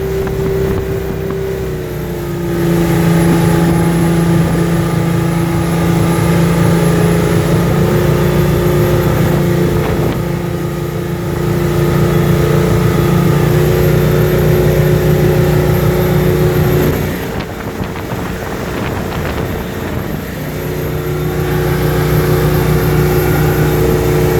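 Volvo Penta KAD44 six-cylinder turbo diesel in a waterjet RIB running under way, with a high turbo whistle over the engine note. The engine comes up in speed about two and a half seconds in, eases off around seventeen seconds, and picks up again near twenty-one seconds.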